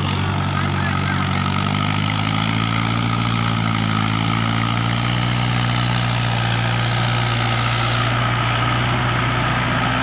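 Mahindra 575 DI tractor's four-cylinder diesel engine running steadily under load while pulling a rotavator through flooded field mud, its pitch drifting slightly, over a constant churning hiss.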